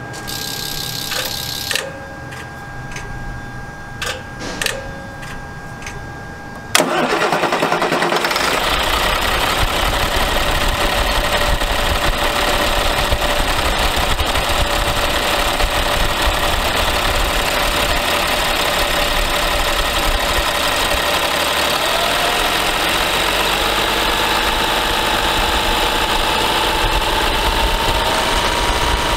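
Caterpillar C7 diesel engine starting about seven seconds in, after a few clicks and a steady electronic tone, then idling steadily; its idle pitch steps up slightly about two-thirds of the way through.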